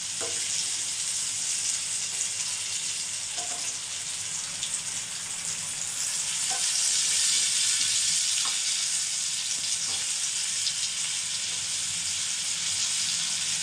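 Masala-coated elephant foot yam slices sizzling steadily as they shallow-fry in hot oil in a terracotta clay pot. A few light knocks come from a wooden spatula turning the slices over.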